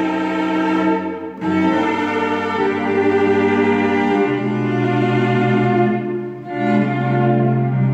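Cello ensemble playing slow, sustained bowed chords over a held low bass line. The harmony changes every two to three seconds, with brief breaks between phrases about a second and a half in and again about six and a half seconds in.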